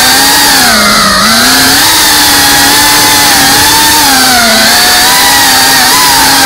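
FPV racing quadcopter's brushless motors and propellers whining loudly, the pitch dipping and rising as the throttle changes, over a steady rush of propeller wash.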